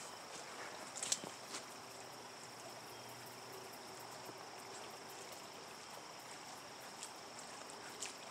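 Insects chirring steadily in the creekside vegetation, a constant high-pitched drone, with a few light clicks and knocks, the sharpest about a second in.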